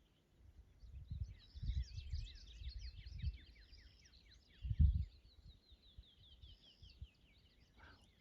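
A songbird singing a long, fast series of high, falling chirp notes that drift slowly lower in pitch over about six seconds. Low thuds sound underneath, the loudest about five seconds in.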